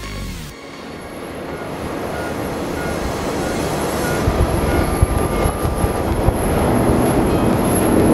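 Background music cuts off about half a second in, giving way to the jet noise of an Airbus A350's Rolls-Royce Trent XWB engines at takeoff thrust during the takeoff roll, a rumbling roar that grows steadily louder.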